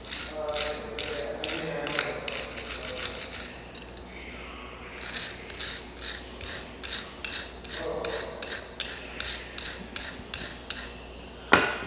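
Wire brush scrubbing the deposits off a fouled spark plug, in quick rasping back-and-forth strokes about two to three a second. A single sharp knock comes near the end.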